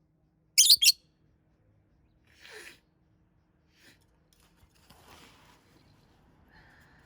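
Peach-faced lovebird giving two loud, shrill calls in quick succession about half a second in, followed by fainter rustling sounds and a short chirp near the end.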